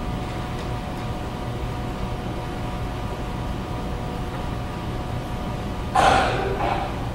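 Room tone of a quiet hall: a steady low hum with faint steady tones, and no piano playing yet. About six seconds in, a short loud noisy sound.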